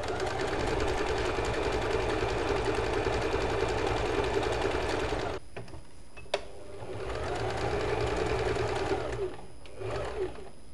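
Usha Janome Fashion Maker electric sewing machine stitching a decorative embroidery pattern. It runs steadily for about five seconds and stops, there is a sharp click, then it runs again more briefly, speeding up and slowing down before stopping.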